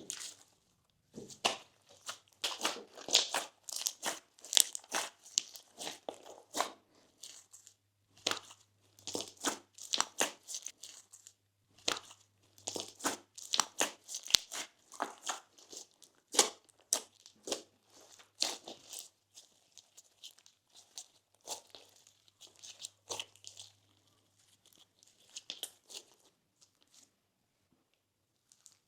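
Slime being squished and stretched by hand: a run of irregular sticky crackles, clicks and small pops, thinning out to scattered clicks over the last third.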